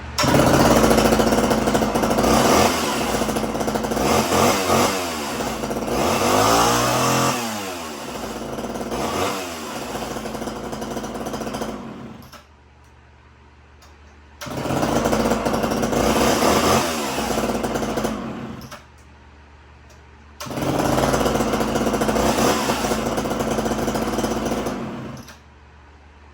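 Large two-stroke Homelite chainsaw running and being revved, its pitch sweeping up and down. It runs loudly in three long spells, dropping twice to a much quieter level in between.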